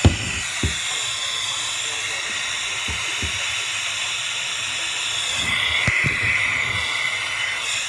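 Steady hiss of radio static, a little louder about two thirds of the way through, with a few soft low thumps, the sharpest right at the start.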